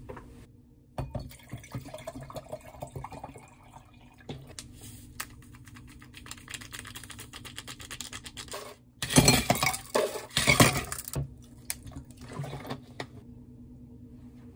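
A drink being made in a glass: small clinks and clatter of glass, then liquid poured into the glass about nine seconds in, the loudest part, lasting around two seconds.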